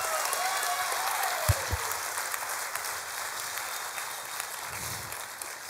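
Audience applauding and cheering, with a few whoops near the start; the applause slowly dies down. Two brief low thumps about a second and a half in.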